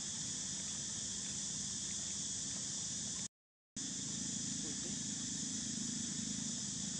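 Steady high-pitched drone of insects in the surrounding vegetation, with low outdoor background noise beneath it. The sound cuts out completely for about half a second a little past the middle, then carries on.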